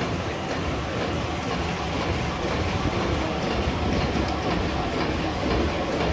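Shiki PC-4530MWLP flatbed label printing press running, a steady, dense mechanical noise with no pauses.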